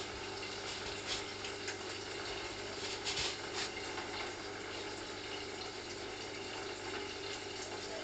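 Hoover CA232 front-loading washing machine in its rinse: water sloshing and splashing with the laundry in the drum, over a steady low motor hum, with a few louder splashes about a second and three seconds in.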